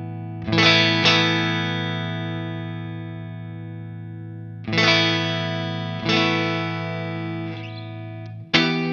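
Electric guitar chords played through an optical compressor pedal. Chords are struck about half a second in and again a moment later, then ring on with long, slowly fading sustain; two more chords come near five and six seconds, and short choppy chords start near the end.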